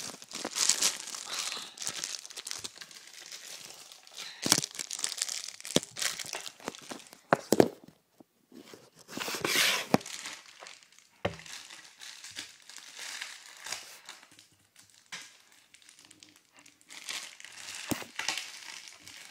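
Clear plastic packaging wrap crinkling and tearing in irregular bursts as it is handled and pulled off a scooter handlebar, with a few sharp knocks and a short quiet pause about eight seconds in.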